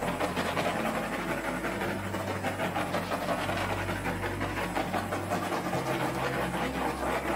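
Handheld butane torch hissing steadily as its flame is swept over wet acrylic paint to pop air bubbles.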